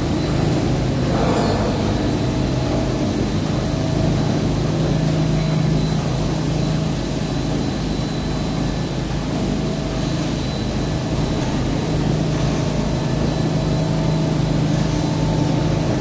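Automatic carpet washing machine running: a steady low mechanical hum with a faint high-pitched whine above it.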